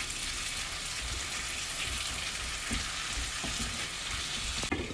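Cut tinda (Indian round gourd) frying in oil in a pan on high heat with no water added, a steady sizzle, with a few light scrapes of a wooden spatula as the pieces are stirred.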